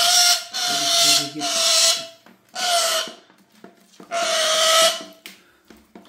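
Black-capped lory screeching harshly, five long, rasping screeches in a row. The bird is untamed and aggressive.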